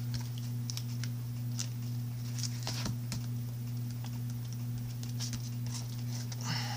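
Scattered light taps and rustles as a foam rubber mouse pad is handled, set down on a spiral-bound paper notebook and pressed flat, over a steady low electrical hum.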